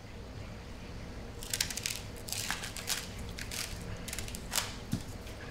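A run of crisp crunching snaps from about a second and a half in until near the end, fresh celery being cut, over a low steady hum. A dull thump comes near the end.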